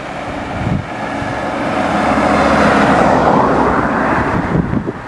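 Race commissaires' van passing close by, its engine and tyre noise swelling to a peak about three seconds in, then falling away near the end.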